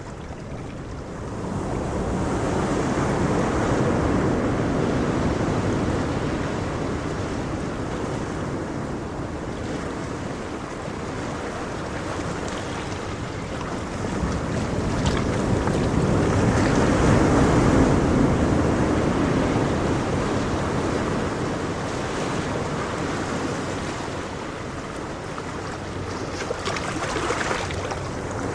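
Ocean surf: waves breaking and washing in as a continuous rush of noise. It swells in slow surges about fourteen seconds apart and ebbs between them.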